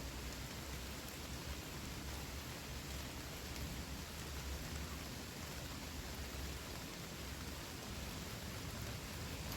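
Steady rain falling, an even continuous hiss of drops.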